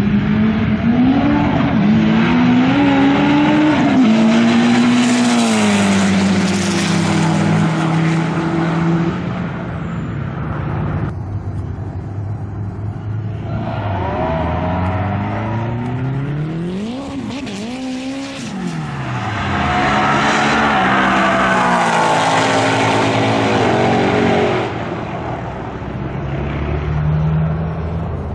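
Street-legal drag cars running at full throttle down the strip. The engines climb in pitch through the gears and drop back at each shift. Near the middle, engines pass by with a falling pitch.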